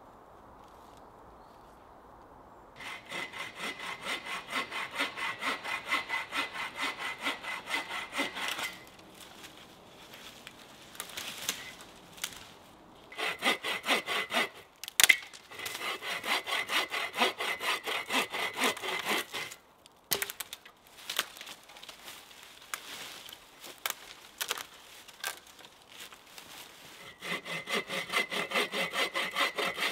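Hand saw cutting through wood in steady back-and-forth strokes, about two to three a second, in several runs with pauses between them. A single sharp knock, the loudest sound, comes about halfway through.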